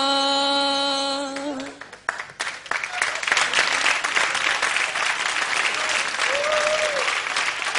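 A singer's long held note ends about a second and a half in. A moment later a live audience starts applauding, and the clapping continues.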